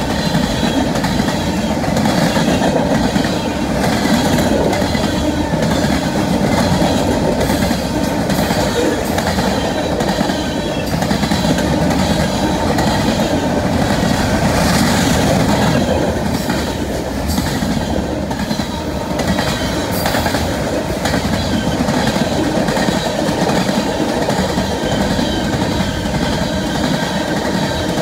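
Freight train cars rolling past at speed: a loud, steady rumble of steel wheels on rail with a repeated clatter of wheels over the track.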